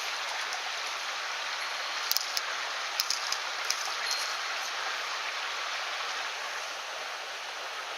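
Mountain stream water rushing steadily, with a few light clicks about two to four seconds in.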